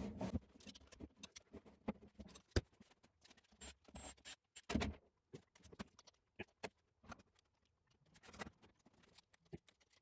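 Faint scattered clicks and light metallic taps of nuts and washers being handled on the main-cap studs of an engine block, with one sharper click about two and a half seconds in.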